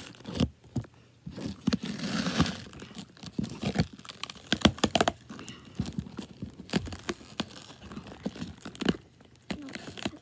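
Plastic wrap and tape on a cardboard box crinkling and tearing as it is pulled open by hand, with scattered sharp clicks and scrapes of the cardboard. A denser rustle comes about two seconds in.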